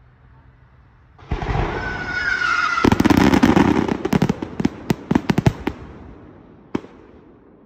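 Aerial firework shells bursting: a sudden loud rush of noise about a second in, then a quick string of sharp bangs, with one last single bang near the end.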